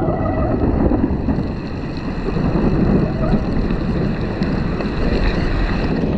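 Steady, loud rush of wind buffeting the microphone, mixed with heavy rain and wet-road spray, as a bicycle is ridden through a thunderstorm downpour.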